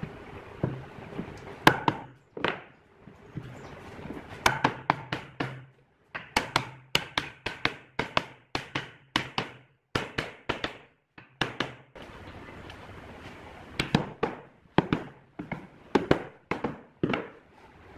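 A wooden mallet knocking along the edge of pine boards to drive an edge joint closed, in runs of sharp blows about two a second.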